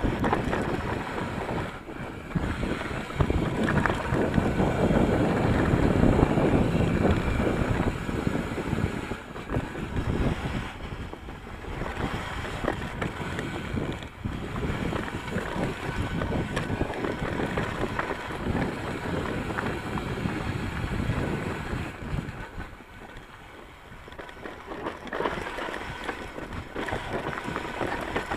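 Wind buffeting an action camera's microphone while an Ibis Mojo HD3 mountain bike rides down a dirt singletrack, with the tyres crunching over dirt and rocks and the bike rattling. It is loudest a few seconds in and drops briefly near the end.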